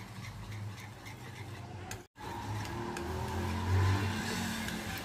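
Wire whisk beating a thick yogurt and condensed-milk batter in a bowl, a soft scraping and stirring, over a low rumble that swells about four seconds in. The sound cuts out to silence for a moment about two seconds in.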